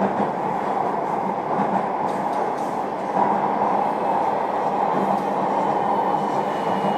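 Running noise of a JR Kyushu 305 series electric train, heard inside motor car MoHa 305-1 while it travels between stations: a steady rumble of wheels and running gear at speed.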